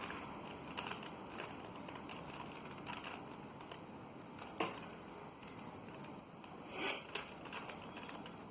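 Plastic Rubik's cube layers being twisted: faint, scattered clicks and clacks, with a longer, louder twist about seven seconds in.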